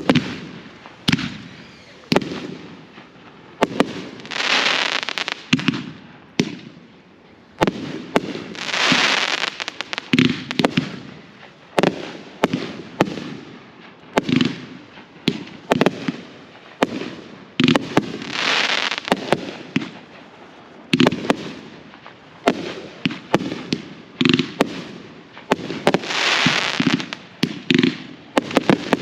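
Aerial fireworks going off in a continuous display: many sharp bangs of shells bursting, with a crackling hiss after a shell every few seconds that lasts a second or two.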